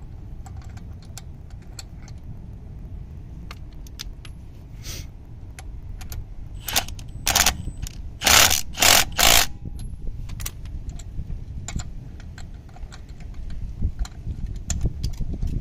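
Milwaukee impact wrench running a wheel lock onto a lug stud: two short bursts about seven seconds in, then three louder bursts within about a second. Light metallic clicks of the lock being turned by hand come before and after.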